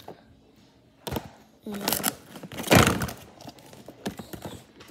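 A few hard knocks and thuds of plastic slime containers being handled and set down on a wooden table, the loudest just under three seconds in.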